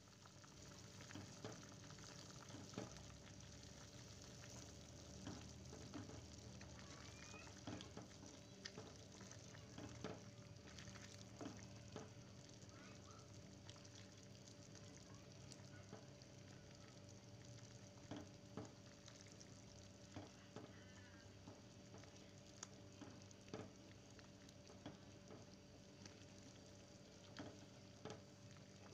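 Pot of vegetable soup boiling faintly on a stove, a steady low bubbling with scattered small pops and clicks, and a ladle stirring through it.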